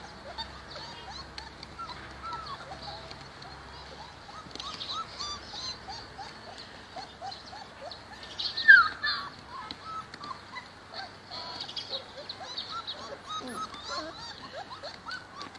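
Puppies whimpering and squeaking in many short high cries, with one louder cry just under nine seconds in, over birds chirping.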